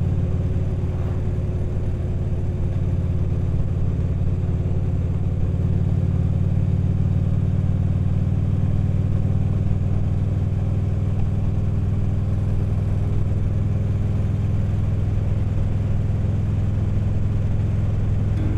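Harley-Davidson V-twin motorcycle engine running at a steady cruise, its low note holding even with no revving or gear changes.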